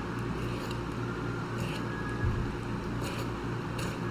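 A knife cutting a chicken breast away from the breastbone, with a few short scrapes against bone and cartilage, over a steady low hum.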